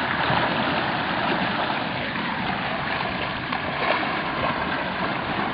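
Water rushing and splashing along the hull of an HP 1030 racing sailboat moving fast through a choppy sea: a steady, unbroken hiss.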